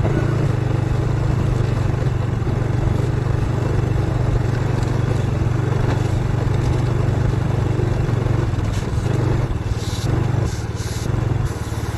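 Motorcycle engine of a saleng (motorcycle with sidecar) running steadily while being ridden, with a few brief bursts of hiss near the end.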